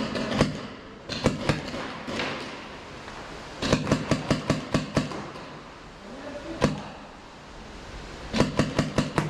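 Paintball markers firing in rapid bursts of sharp pops, several shots at a time. The longest bursts come near the middle and near the end, with a single shot in between.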